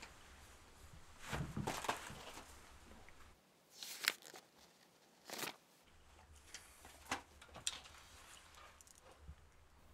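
Pages of a small paper notepad being flipped: a series of soft paper rustles and flicks a second or two apart.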